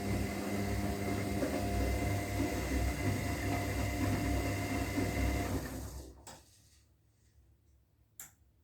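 Zanussi washing machine in its rinse cycle: the drum motor runs with a steady hum, then winds down and stops about six seconds in. During the pause there are two sharp clicks.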